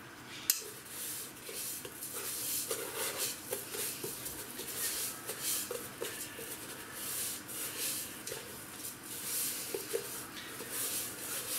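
Pieces of raw pork fat being rolled and rubbed in a dry salt-and-ground-red-pepper mix inside an enamel pot, coating them for dry salting: an irregular gritty rustling and scraping, with one sharp knock about half a second in.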